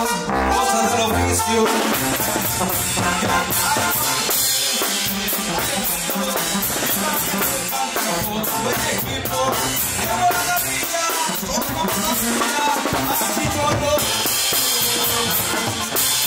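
A drum kit played live and loosely: a steady run of cymbal crashes and drum hits, with a maraca shaken along.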